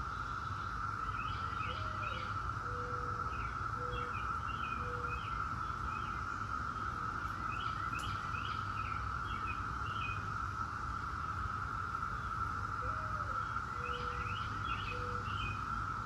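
Chorus of Brood X periodical cicadas: a steady, even drone. Birds chirp over it in short bursts, and a lower cooing call comes twice.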